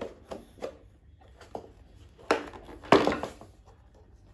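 Knocks and clatter of hard plastic parts of a car's HVAC air distribution housing being handled: a few light knocks, then two louder knocks about two and three seconds in.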